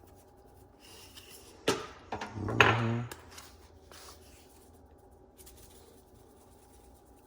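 Kitchen handling noises while seasoning a pot: a sharp knock just under two seconds in, then a short rasping rub about a second later, ending in a brief hum-like voice sound, over a faint steady hum.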